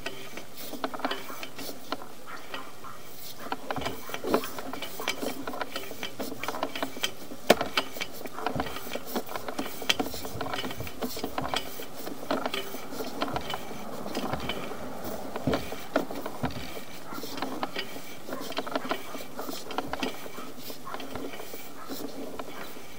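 Sewer inspection camera's push cable and reel being worked to move the camera head along the line: irregular clicking and rattling, several ticks a second, over a steady hum.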